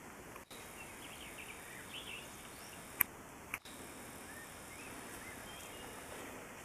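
Faint outdoor ambience with a few distant bird chirps and a single sharp click about three seconds in; the sound drops out briefly twice.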